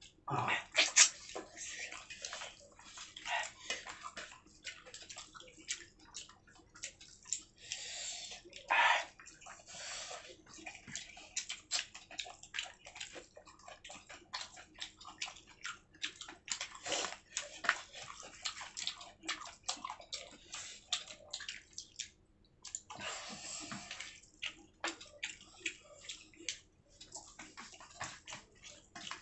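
Eating sounds of fish with gravy and rice: many quick, irregular wet smacks and clicks of chewing and mouthing the food.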